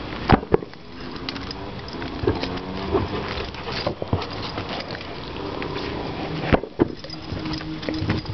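German Shepherds playing with a ball on dirt: scuffling paws and a few sharp knocks from the ball and their mouths, once at the start and twice a little before the end.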